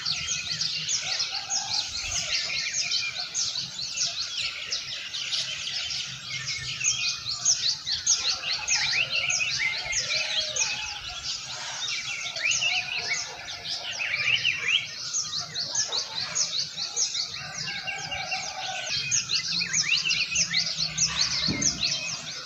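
Many small birds chirping at once, their rapid high chirps overlapping without a break.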